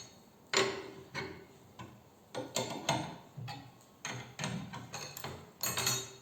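Parts of a motorcycle clutch basket being handled: a series of irregular clicks and knocks, about a dozen over a few seconds.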